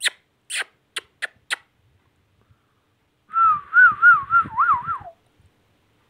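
A few short sharp clicks, then, about three seconds in, a whistled phrase that warbles up and down about five times and drops in pitch at the end.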